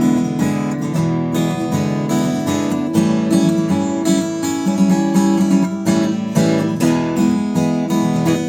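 Newtone Gypsy Road GA 45 transacoustic guitar played unplugged, heard with its plain acoustic sound and no amplification: a continuous run of played chords and notes.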